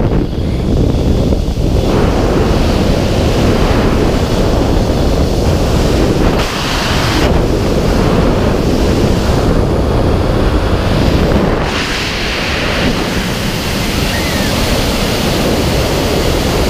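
Wind rushing over a helmet-mounted camera's microphone in wingsuit freefall: a loud, steady rush whose strength and brightness shift every few seconds.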